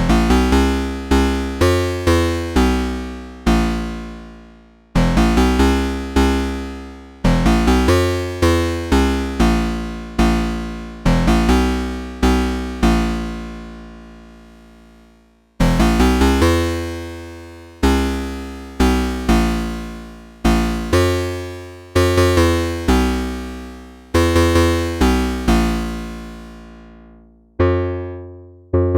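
Behringer 2600 analog synthesizer playing a phrase of plucked notes that strike sharply and fade away, some in quick runs and some left to ring out, over a low bass note.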